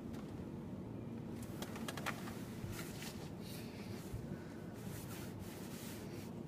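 Automatic car wash heard from inside the car: water spray spattering on the windscreen and body in irregular bursts from about a second and a half in, over a low steady machine noise.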